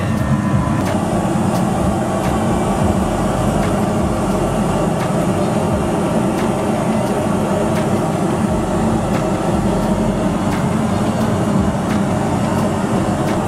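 Steady low rumble of simulated jet engine and airflow noise in a Boeing 737 flight simulator's cockpit, with faint ticks recurring at regular intervals.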